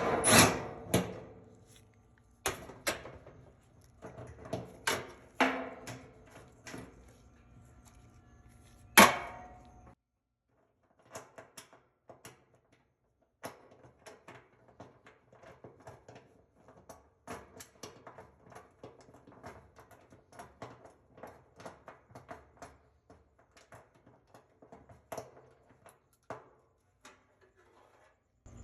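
Clicks and knocks of tools and metal parts as drum support rollers are unbolted from the back of a dryer, with a sharp knock about nine seconds in, then only faint, scattered ticks.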